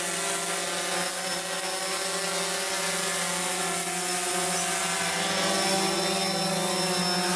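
DJI Phantom 4 Pro quadcopter hovering in place, its propellers giving a steady buzzing hum that swells slightly about five seconds in.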